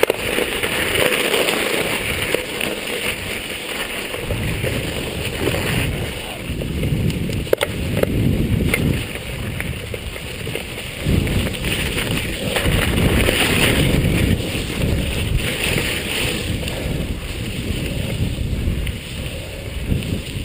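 Mountain bike riding over a gravel and wet-snow track: tyre noise and the bike rattling over the bumps, with wind rushing on the microphone and a sharp knock about a third of the way in.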